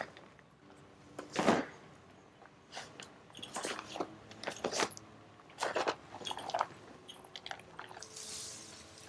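Irregular crunching footsteps on dry dirt and leaf debris, the loudest about one and a half seconds in.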